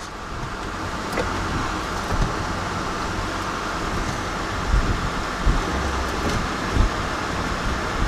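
Tow truck engine running hard under load as it pulls a stuck car through snow. It builds over the first second, then holds steady, with a few low thumps.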